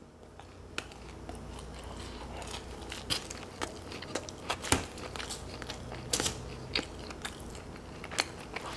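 Close-miked chewing of pizza crust dipped in blue cheese dip, with wet mouth clicks and lip smacks scattered throughout, over a low steady hum.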